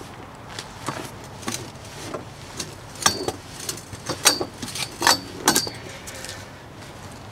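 Cigarettes being crushed under a person sitting and shifting on a padded stool seat: a run of sharp crackles and short squeaks, loudest about three to five and a half seconds in.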